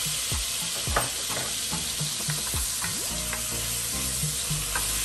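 Pork riblet pieces frying in hot oil in a cast-iron Dutch oven, a steady sizzle with a few short knocks scattered through it as the meat is turned.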